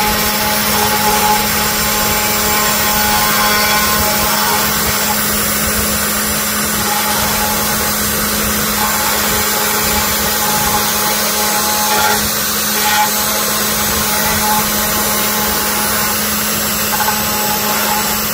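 CNC router spindle with a small end mill cutting wood while carving a 3D relief: a steady motor hum under a loud, even cutting hiss, with faint higher tones that come and go as the bit moves through the cut.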